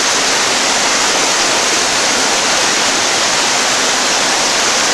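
Steady rushing noise of water running through an underground cave stream.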